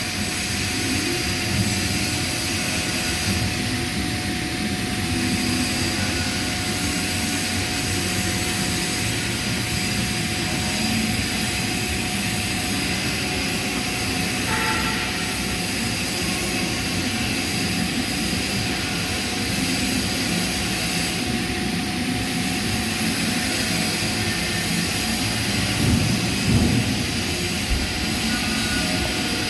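Welding arc on pipe: a steady, continuous hiss and crackle with a faint steady hum underneath.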